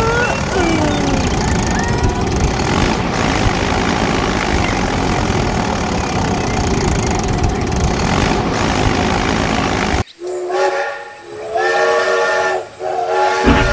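A steady, loud rushing hiss for about ten seconds, with a few brief gliding whistles at the start. It cuts off suddenly and a multi-note horn sounds a chord in three or four short blasts, like a train horn.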